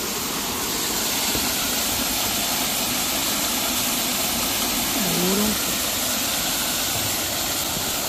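Steady rushing of a small waterfall cascading over rock into a pool.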